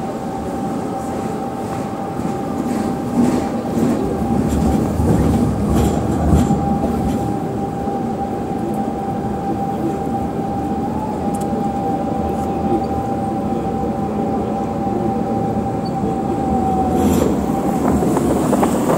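Tram running on its rails, heard from inside the car: steady running noise with a steady high tone that stops near the end. The wheels clack over rail joints or points several times between about four and seven seconds in.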